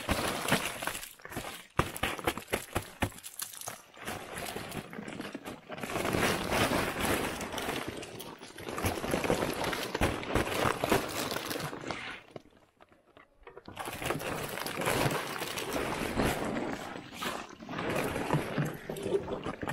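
Stiff, ice-crusted canvas snowmobile cover being grabbed and dragged off the machine: irregular crinkling, scraping and crunching of frozen fabric and ice, with a short pause about two-thirds of the way through.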